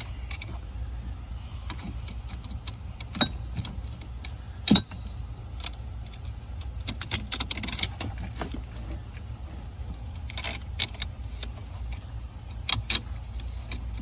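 Scattered small metallic clicks and light rattles as a hand works at a bolt-on high-current fuse on its studs in a car's fuse box, with a few sharper clicks. A steady low hum runs underneath.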